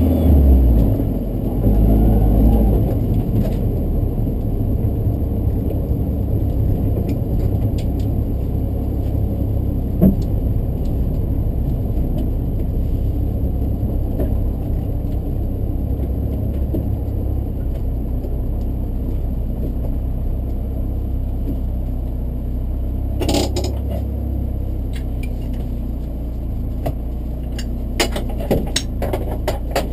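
BMW E36 318is four-cylinder engine heard from inside the cabin, louder under light throttle for the first few seconds and then a steady low drone as the car rolls slowly. A few sharp clicks and knocks near the end.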